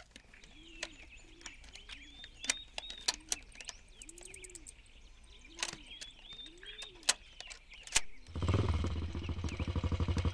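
Birds chirping in short arched calls, with scattered sharp ticks. About eight seconds in, a motorbike engine comes in loud, running with a steady pulsing beat.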